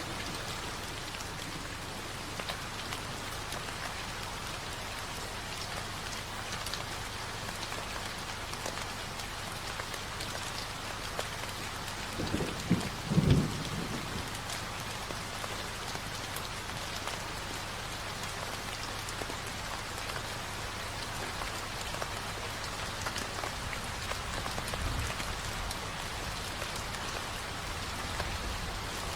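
Steady rain falling on a surface, a continuous even patter. About twelve seconds in, a low rumble of thunder rises and fades over a couple of seconds.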